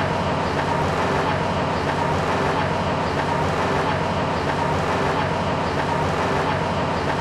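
Workshop machinery running steadily: an even mechanical noise with a faint hum, the sound of parchment-processing machines at work.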